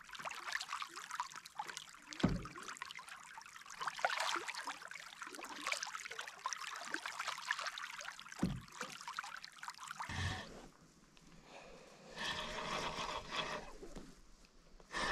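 Wet crackling, squelching and trickling of footsteps through waterlogged bog grass, ground that can give way underfoot. Two dull thumps come about two seconds in and about eight and a half seconds in, with a short lull around eleven seconds in.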